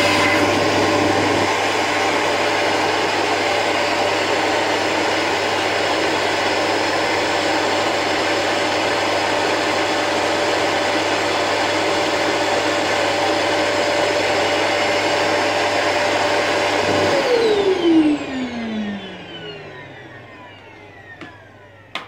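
Electrolux UltraFlex bagless canister vacuum cleaner running at full power with air drawn through its cyclone and out an airflow meter on the hose: a steady motor whine over rushing air. About 17 seconds in it is switched off and the whine falls away as the motor spins down.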